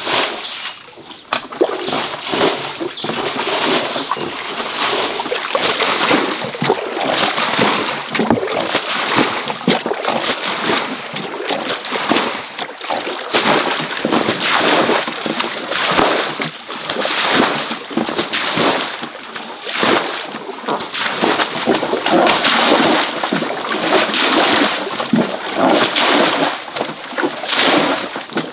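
Water in a shallow stream splashing and sloshing over and over in quick, uneven strokes, as it is stirred, scooped or waded through while fishing.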